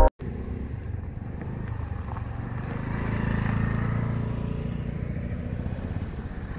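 Small motorcycle and scooter engines riding past on a gravel road. The engine sound grows loudest about halfway through as a scooter passes, and another motorcycle follows close behind.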